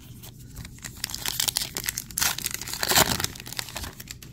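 Crinkling and crackling of a Topps Heritage baseball card pack wrapper as it is handled and torn open, with the loudest rustle about two to three seconds in.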